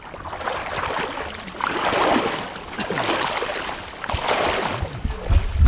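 Hunters wading through flooded timber in waders: water swishing and splashing with each stride, in swells about once a second. A low wind rumble on the microphone comes in near the end.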